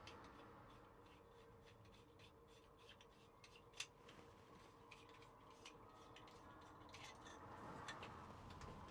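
Near silence with faint small clicks and rubbing from plastic roller-blind fittings being handled and offered up into place, and one sharper click about four seconds in.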